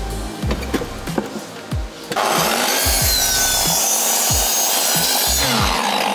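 Electric power saw cutting through wood for about three seconds, starting abruptly about two seconds in, its whine dropping as it winds down near the end. Background music with a steady beat plays throughout.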